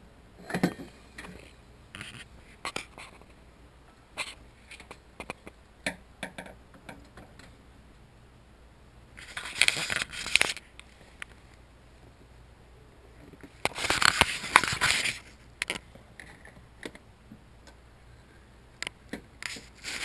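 Hand-handling noises in a truck's engine bay: scattered light clicks and knocks, and two longer scraping, rustling stretches about nine and fourteen seconds in, the second the loudest.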